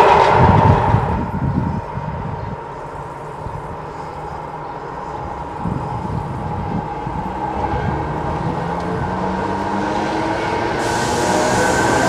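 The tail of a passing freight train fades over the first two seconds. Then a ČD class 460 electric multiple unit approaches, and its running noise and motor hum grow steadily louder. About eleven seconds in a hiss of wheels and rail comes in, with a faint whine rising slightly in pitch as the unit draws close.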